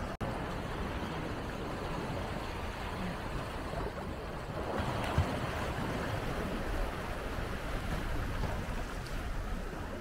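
Sea waves breaking and washing on the shore, a steady rush, with wind rumbling on the microphone.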